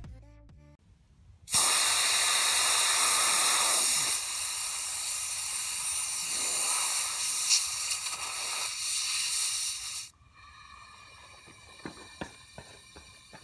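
Compressed air hissing steadily from an air hose into a soccer ball as it is pumped up. The hiss starts suddenly about a second and a half in, eases slightly partway, and cuts off suddenly. A few faint clicks follow near the end.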